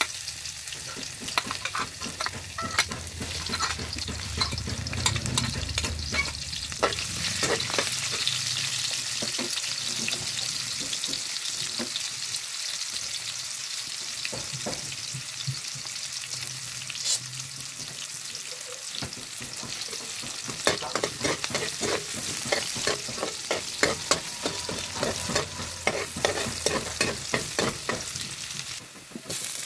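Chopped aromatics and sliced red onion sizzling in hot cooking oil in a large iron wok. A metal ladle clinks and scrapes against the pan as it stirs, and the clinks come thick and fast in the last third.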